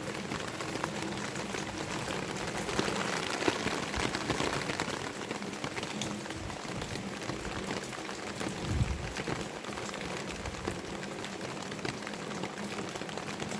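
Heavy monsoon rain pouring down: a steady wash of rain with dense drop patter, a little louder about three to five seconds in, and a low thud near nine seconds.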